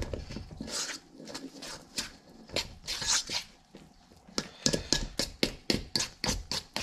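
A utensil stirring wet, sticky pizza dough in a stainless steel mixing bowl, scraping and knocking against the bowl in short irregular strokes that come faster from about halfway through.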